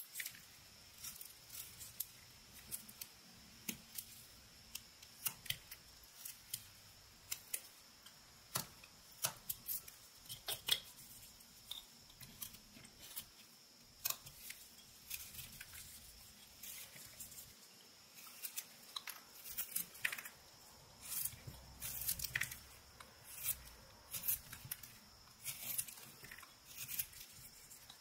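Whittling knife, a boning knife reworked for carving, slicing shavings from a block of Eastern white pine: short, crisp cutting strokes at an irregular pace, one to three a second.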